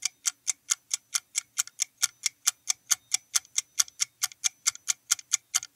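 Clock ticking sound effect, evenly paced at about four ticks a second, marking a quiz countdown timer while the answer time runs out.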